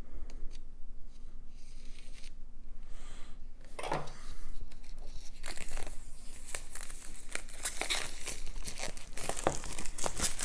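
Plastic shrink-wrap being torn and crumpled off a sealed hardcover book. A few light rustles come first, then from about five seconds in the crinkling grows dense and busy.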